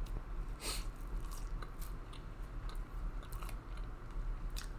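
A person chewing and biting fried chicken close to the microphone, with small crisp crackles throughout and one louder crunchy bite under a second in.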